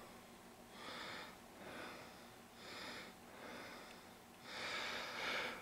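Soft breathing: five noisy breaths about a second apart, the last one longer.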